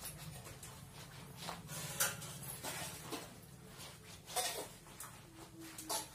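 A cloth duster being rubbed over a plastic-covered marker board, wiping off writing in a series of short scrubbing strokes. A faint drawn-out whine comes near the end.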